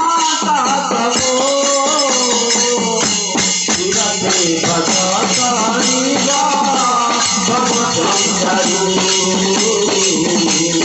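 Folk devotional music: brass hand cymbals clashing and jingling in a steady, dense rhythm under a sung melody that rises and falls.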